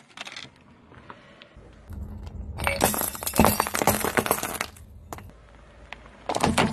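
Car tyre crushing a row of glass light bulbs on asphalt: a dense crackle of shattering glass and clinking shards lasting about two seconds, after a low rumble of the tyre starting to roll. Near the end a new sudden crunch begins as the tyre meets the next object.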